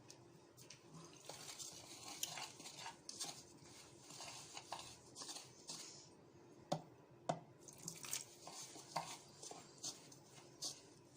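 Water added a little at a time to a bowl of semolina and flour and stirred in, with soft scraping and rustling against the bowl. From about the middle on come a few sharp taps.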